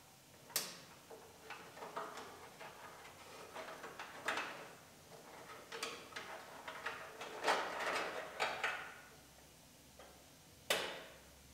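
Plastic wiring-harness clips clicking into the inner panel of a 2007 Honda Civic Si's deck lid, with short rustles of the harness being handled between the clicks and a sharper click near the end.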